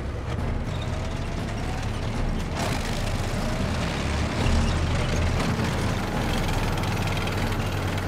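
Tracked armoured vehicles on the move: engines running with a steady low rumble under the rattling clatter of their metal tracks.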